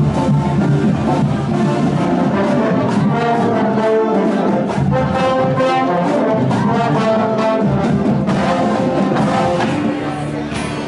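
Parade brass band playing, with held brass notes over a steady beat; the sound changes abruptly about eight seconds in.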